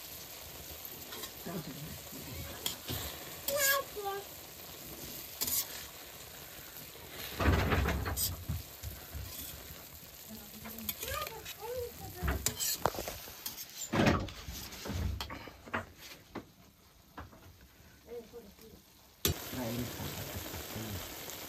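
Food sizzling and frying in a pan while it is stirred, with short scraping clicks and knocks of the spoon against the pan.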